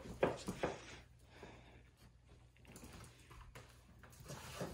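A few light knocks and taps, then faint rustling of cardboard and packing paper near the end.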